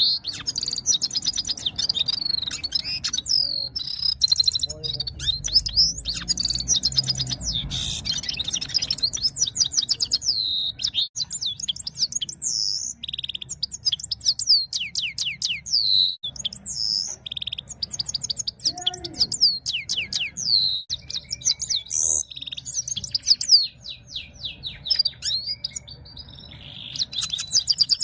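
Red-fronted serin singing in the style of a European goldfinch: a long run of fast high twittering notes and trills, broken by short pauses.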